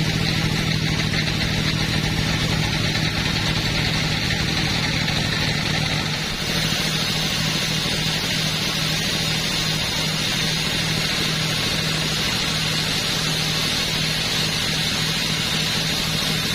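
Chainsaw engine running steadily at a constant pitch, with a brief dip about six seconds in before it carries on.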